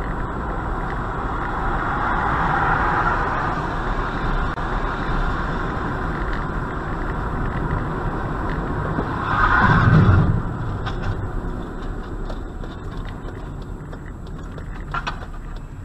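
A car driving on wet pavement, heard from inside the cabin: steady road and tyre noise with engine rumble. About ten seconds in it swells louder for about a second.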